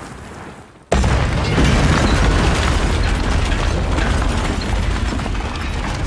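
Missile explosion sound effect: a blast's rumble dying away, then a sudden, much louder blast about a second in that carries on as a deep, continuous rumble.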